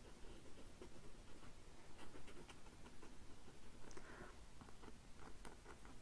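Faint scratching of a pen on paper in short, irregular strokes as lines are sketched.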